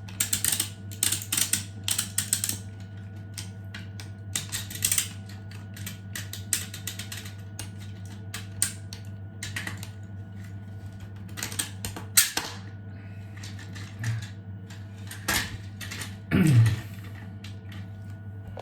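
3D-printed plastic wind-up mechanism clicking rapidly in bursts of a second or two as its spring is wound with a key and its gears turn, over a steady low hum.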